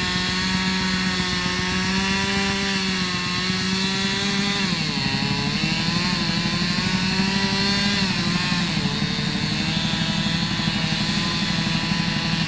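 Chainsaw running at high revs while cutting through trees, its pitch dropping briefly twice, about five and nine seconds in, as it takes load.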